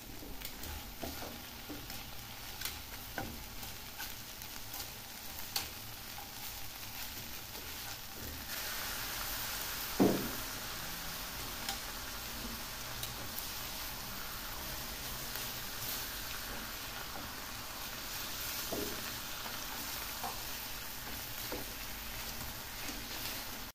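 Pork chops and sliced onion frying in a pan, sizzling steadily, with metal tongs tapping and scraping the pan now and then. The sizzle gets louder about eight seconds in, and there is a sharp clink of the tongs about ten seconds in.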